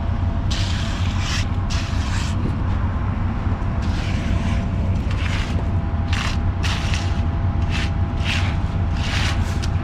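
Concrete mixer truck running steadily with its drum turning to discharge, concrete sliding down the chute. Short, irregular scrapes, several times, as shovels work the fresh concrete.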